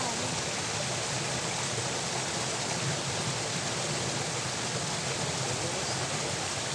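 Steady rush of irrigation water pouring out of a culvert under a small bridge into the channel.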